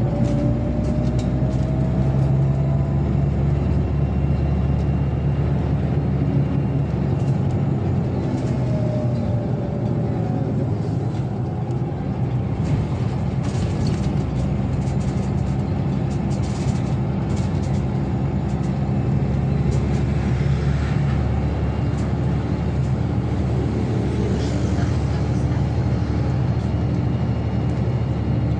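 Scania OmniLink city bus heard from inside the passenger cabin while driving: a steady drone of engine and road noise, with a faint whine that rises and later falls in pitch. Short clicks and rattles come around the middle.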